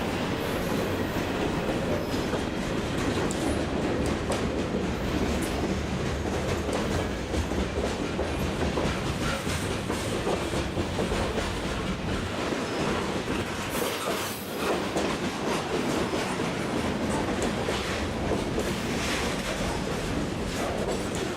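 Freight train rolling past, its steel wheels clicking over rail joints in a steady rumble of moving cars.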